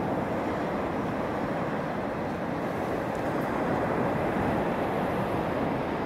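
Steady rush of North Sea surf breaking along the shore.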